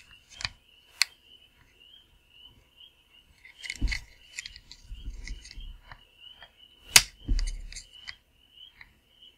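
Hard plastic toy parts handled and pressed together as a plastic missile is worked onto the side tab of a toy flight pod: scattered light clicks and rattles, with one sharp click about seven seconds in.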